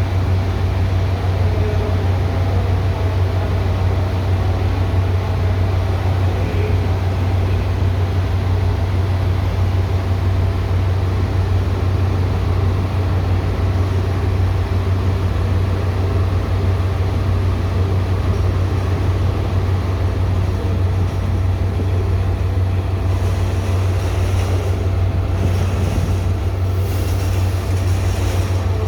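Train running, a steady low rumble with no pauses, picking up a little extra hiss in the last few seconds.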